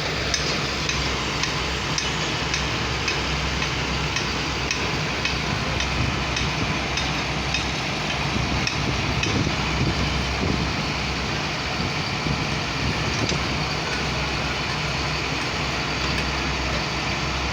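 Heavy construction machinery engine running steadily, with a light high tick repeating about twice a second in the first half.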